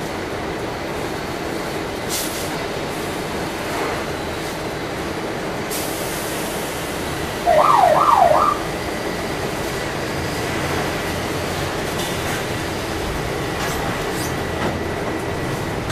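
Steady running noise heard from inside a city bus driving on wet streets. About halfway through, a loud high squeal rises in pitch three times in quick succession, over about a second.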